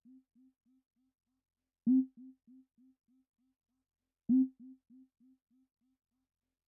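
The close of an electronic music track: a single pitched electronic hit, struck twice a couple of seconds apart, each echoing away in fading repeats about three a second.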